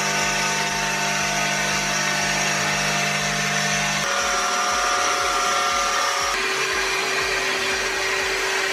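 Hwacheon Hi-TECH 230 CNC lathe turning and cutting a steel pinion blank under coolant spray: a steady whir and hiss with a humming tone that shifts in pitch about four seconds in and again about six seconds in.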